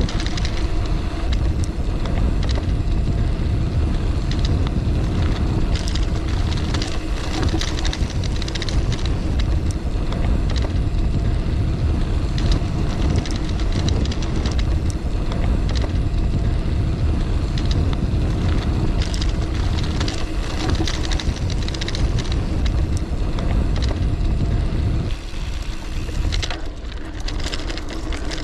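Wind buffeting the microphone and Terravail Rutland 650b knobby tyres rolling fast over a dry dirt trail on a gravel-bike descent, with frequent small ticks and rattles from the bike and loose dirt. The rushing eases near the end as the bike slows.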